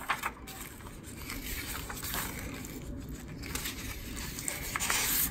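Pages of a paper brochure being leafed through by hand: soft paper rustling with a few light page flicks.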